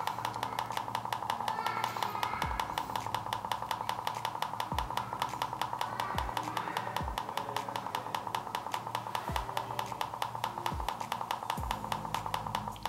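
Xiaomi Mi Air Compressor beeping in a fast, even string, about five beeps a second, as its pressure-setting button is held and the target pressure counts up one step per beep.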